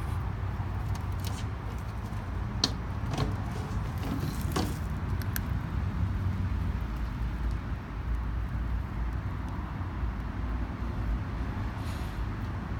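Steady low rumble of outdoor background noise, with a few faint clicks about three to five seconds in.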